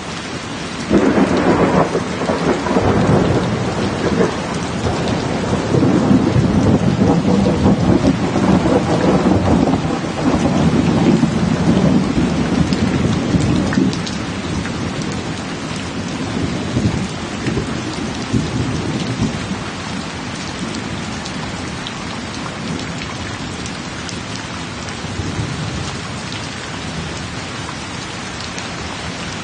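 Heavy rain falling, with a long rolling rumble of thunder that starts about a second in and dies away around the middle, leaving the steady hiss of rain.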